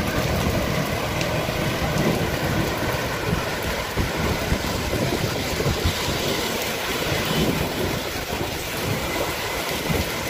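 A steady noise of heavy rain mixed with street traffic: cars and auto-rickshaws driving through standing floodwater, their tyres splashing.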